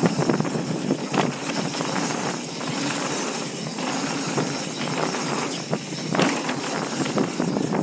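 Specialized Enduro mountain bike rolling fast downhill on a dirt and gravel trail: steady tyre noise over the dirt with constant small rattles and knocks from the bike over the rough ground.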